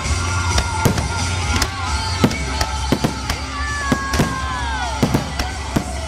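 Aerial fireworks display: shells bursting in quick, irregular bangs and crackles, over music playing. A couple of falling whistle tones are heard about four seconds in.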